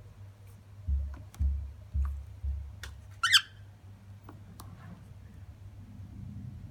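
A cockatiel gives one short, loud squawk a little past halfway. Before it come four dull low thumps in quick succession, with faint scattered clicks throughout.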